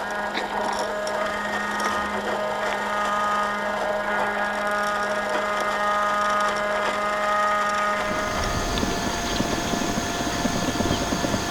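Brushed 540 electric motor and gear drivetrain of a 1/10-scale RC crawler whining at a steady pitch. About eight seconds in the whine changes to a different pitch over a rougher rumble with scattered ticks.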